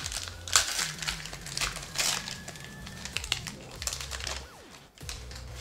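A trading-card booster pack's shiny plastic wrapper crinkling and crackling as it is torn open by hand, in several sharp crackles.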